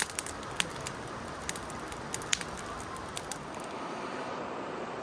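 Campfire crackling, with sharp irregular pops and snaps over a steady hiss. A little over three seconds in it gives way to the steady rush of flowing water.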